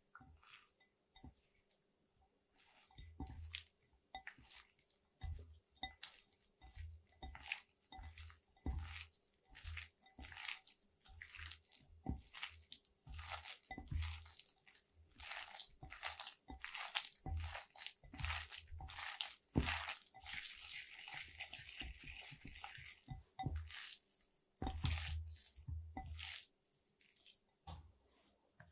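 Hands squeezing and kneading raw ground beef-and-pork mince with egg, milk-soaked breadcrumbs and fried onion in a glass bowl: wet squelching and squishing strokes, one to two a second, as the mixture is worked until sticky. The strokes stop near the end.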